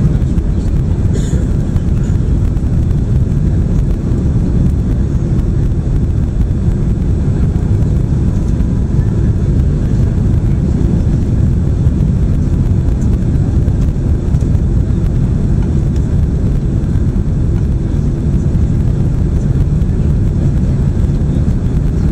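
Steady low roar of a Boeing 767's engines and airflow, heard from inside the passenger cabin during the approach to landing.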